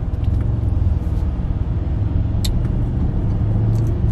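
Low, steady road and engine rumble inside a moving car's cabin, with a few faint clicks, one a little sharper about halfway through.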